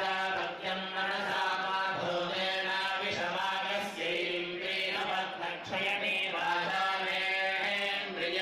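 Vedic chanting in Sanskrit: a steady, melodic recitation of hymn verses over a low tone held beneath.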